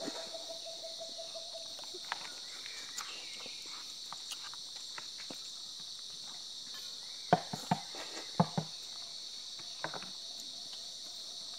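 Steady high-pitched chorus of insects droning without a break. About seven seconds in, a handful of sharp knocks stand out, louder than the chorus.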